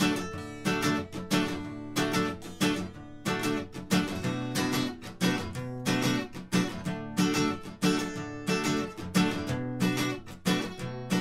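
Acoustic guitar strummed in a steady rhythm, with an electric guitar playing held low notes along with it: an instrumental passage of a live song with no singing.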